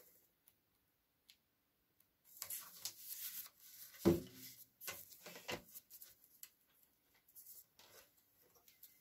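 Handling noises at a stopped scroll saw. A plywood workpiece with its paper pattern rustles and is set down on the saw table with a short thump about four seconds in, followed by small scattered clicks and ticks as the blade is refitted into the upper blade clamp.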